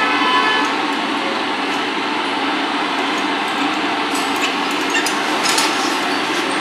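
Steady machine noise in a tyre workshop, with a few metal clinks and knocks from a clamp tool being handled inside a bus tyre, mostly in the second half.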